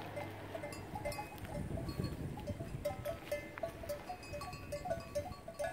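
Several cowbells on a herd of resting cattle clinking irregularly, short overlapping rings of slightly different pitches as the cows move their heads.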